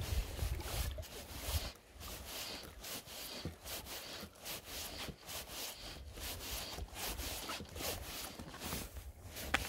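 Wind buffeting the microphone in low rumbling gusts that ease off for a few seconds early on and then return, over close rustling and rubbing.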